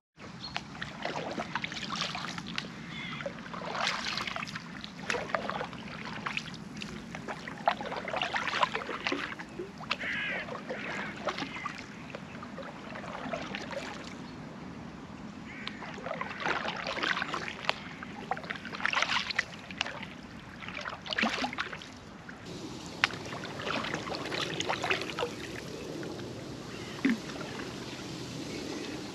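Canoe being paddled: paddle blades dipping and pulling through the water in irregular repeated strokes, one every second or two.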